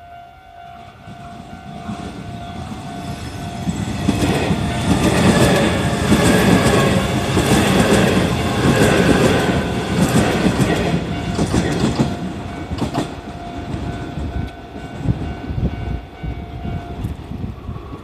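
Hanshin 9000 series electric train passing close by, building up over the first few seconds, then loud for several seconds with wheels clattering over rail joints before fading. A level-crossing warning bell rings steadily throughout and stops near the end.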